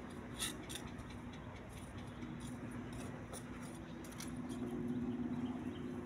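Distant Mi-8 helicopter droning steadily, growing somewhat louder about four seconds in. A few faint clicks come near the start.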